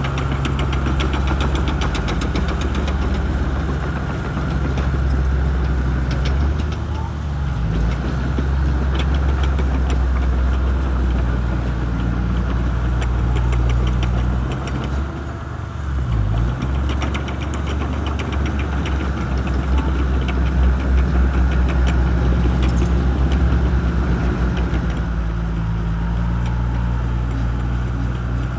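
Shantui crawler bulldozer's diesel engine running under load, a steady low drone with a rapid clatter over it, dipping briefly about halfway through.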